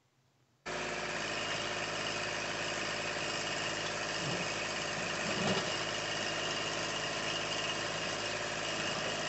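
Kubota compact tractor's diesel engine running steadily while the backhoe digs. The sound cuts in just under a second in.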